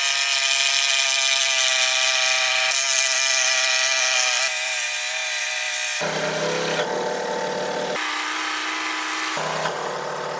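Scroll saw running, its reciprocating blade cutting through a small 8 mm wooden block: a steady machine whine with several stacked tones. The pitch and level change abruptly several times, dropping a little about four and a half seconds in.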